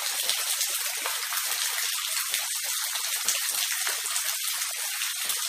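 Steady rain falling, a dense even hiss with scattered heavier drops.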